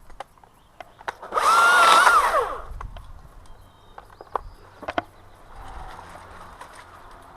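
Chainsaw revved briefly for about a second, its pitch falling away as the throttle is released. Scattered sharp knocks come before and after it.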